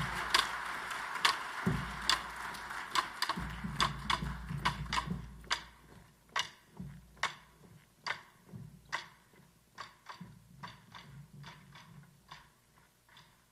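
Footsteps of marching band members on a wooden stage: hard heels knocking a few times a second, some falling nearly in step, with a low rumble of boards underneath. The steps grow quieter after about six seconds.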